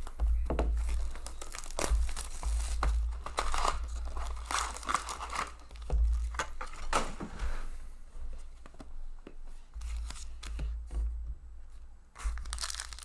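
Plastic wrap being torn off a 2019-20 Upper Deck Trilogy hockey card box, then the box opened and its foil packs crinkling as they are handled, in irregular short rustles.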